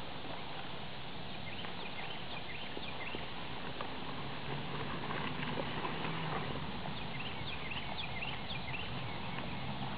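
Plastic tarp rustling and crinkling as a rider carries it on a walking Tennessee Walking Horse, with the horse's soft hoofbeats on grass.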